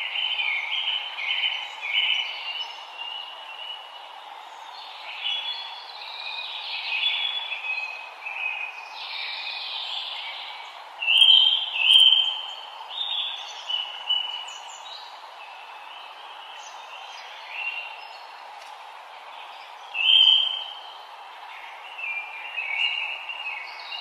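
Forest birds singing: many short chirping and warbling phrases from several birds, overlapping, with the loudest phrases about eleven and twenty seconds in, over a steady even background hiss.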